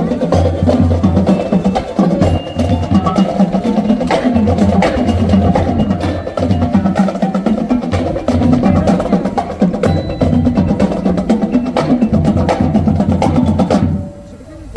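Marching showband playing: drums and percussion over a repeating low bass part. The music stops near the end.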